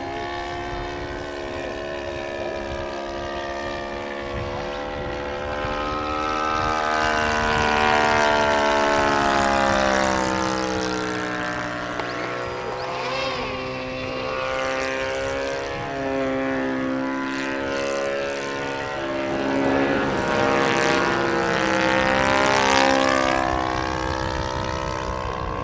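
Radio-controlled Spacewalker model floatplane's engine and propeller running in flight, the note sliding up and down in pitch as it manoeuvres. It swells louder twice, about a third of the way in and again near the end.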